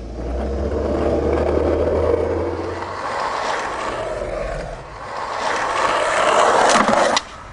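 Car running, heard with road and wind noise: a steady low hum for the first few seconds, then a swelling rush of noise that cuts off abruptly near the end.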